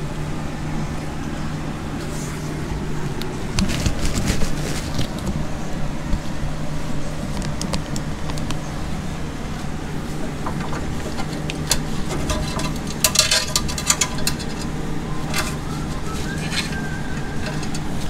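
Steady hum of an electric box fan running, with scattered clicks and rattles of hands working on the car's fuel-system parts, thickest about thirteen seconds in.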